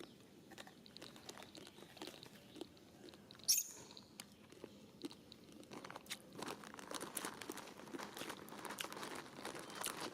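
Scattered crunching and crinkling clicks that grow denser after about six seconds, with one sharp, loud snap about three and a half seconds in.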